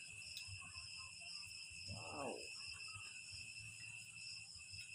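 A steady, high-pitched chorus of insects chirping, with a brief hum of a voice about two seconds in.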